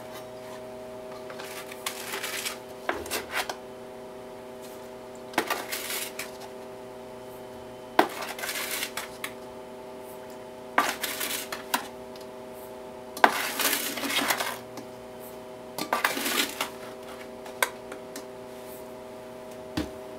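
Granulated sugar being scooped with a metal measuring cup and poured into a stainless steel stockpot, about six times. Each pour starts with a metal clink and is followed by a sandy hiss of falling sugar. A steady hum runs underneath.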